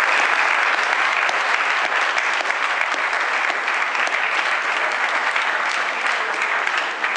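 An audience applauding, a dense steady clapping that eases off a little near the end.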